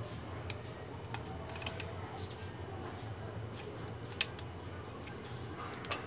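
Scattered faint metallic clicks and a brief squeak as pliers grip and bend the end of the brake pad retaining pin on a cable-actuated disc brake caliper.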